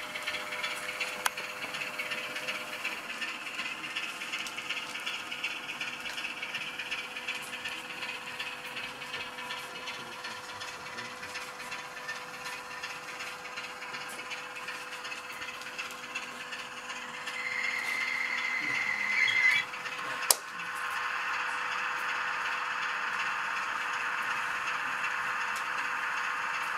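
Model diesel locomotive's DCC sound decoder playing diesel engine sound through its small speaker, a steady hum with a rattle. About two-thirds through, a steady high tone lasts about two seconds and grows louder, then a sharp click, after which the engine sound runs louder.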